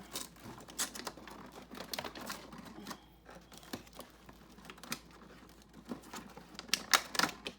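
Hands opening a cardboard advent calendar door and unwrapping a tiny toy inside: irregular clicks, taps and rustles of packaging, with a few louder snaps near the end.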